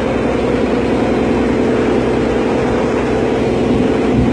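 Ferry's engine running with a steady, even drone.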